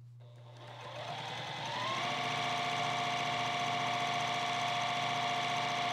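Juki TL2010Q straight-stitch sewing machine starting up and stitching through fabric. It rises in pitch over about the first two seconds, then runs steadily at high speed.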